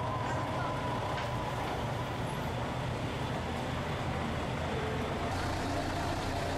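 Large tour coaches idling at the kerb: a steady low engine hum with some street traffic behind it.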